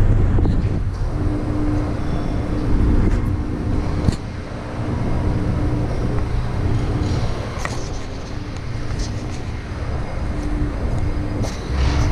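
Steady low rumble of road traffic, with a faint on-and-off hum and a few light clicks.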